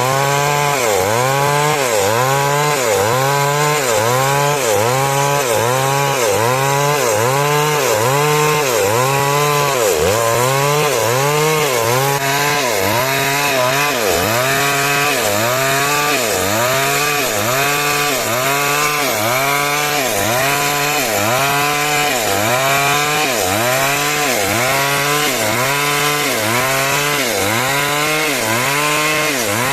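Chainsaw ripping lumber into rafters, the engine running hard without a break. Its pitch dips and recovers in an even rhythm about once a second as the chain bites into the wood.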